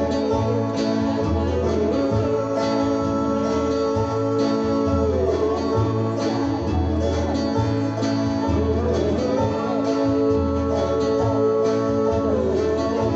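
Live country gospel band playing an instrumental passage between verses: guitar over a steady bass line, with long held notes on top.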